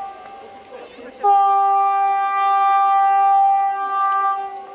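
Horn of an approaching SU42-class diesel locomotive (SU4210-008): one long, steady single-pitch blast of about three seconds, starting just over a second in.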